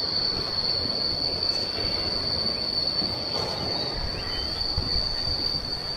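Insects droning in one steady high-pitched note, over a low rustling background.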